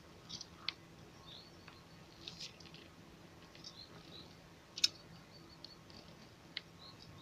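Quiet outdoor ambience with scattered short, high chirps of small birds and a few faint sharp clicks, the loudest click about five seconds in.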